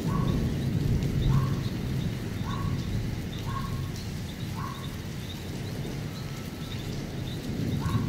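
Thunder rumbling low over steady rain, fading through the middle and swelling again near the end. An animal's short rising call repeats about once a second through it.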